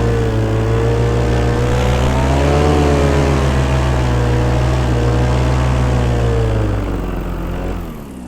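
Paramotor engine running steadily, its pitch rising briefly about three seconds in, then throttled back near the end so the sound drops and winds down as the engine slows.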